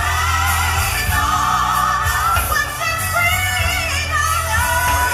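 Gospel song: a singer's voice in long, wavering held lines over a steady bass.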